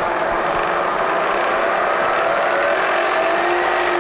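XYZ 1500 vertical milling machine's variable-speed head running with the spindle being wound up from about 500 RPM toward 2400 RPM: a steady mechanical whirr whose tones rise slowly in pitch. A light rattle comes from the drawbar, loose in the spindle with no collet fitted.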